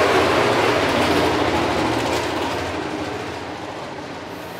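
Racing motorcycle engine at high revs, heard from inside the pit garage as the bike passes and fades away, its pitch drifting slowly down.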